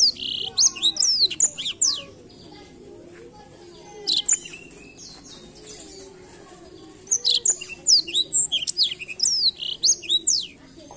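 Black-throated canary (blackthroat) singing: fast runs of high, sliding whistled notes, in a long phrase at the start, a short one about four seconds in, and another long phrase from about seven seconds in until near the end.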